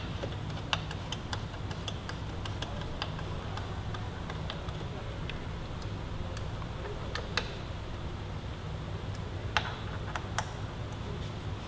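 Ratchet wrench clicking in scattered sharp ticks as bolts are run down and torqued, with a few louder clicks near the end, over a steady low hum.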